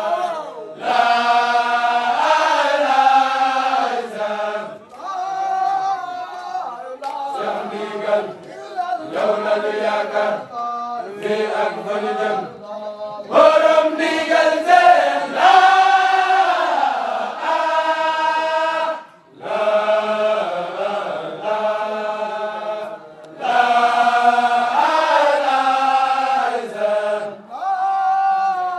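A group of men chanting a Mouride Sufi zikr together in unison, in repeated sung phrases a couple of seconds long with short breaks between them.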